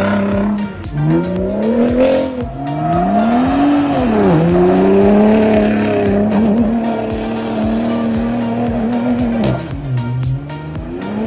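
Ford F-150 Raptor pickup's engine revving up and down while it drifts on loose dirt, its pitch rising, falling sharply about four seconds in, then holding steady before dipping near the end. Background music with a steady beat plays over it.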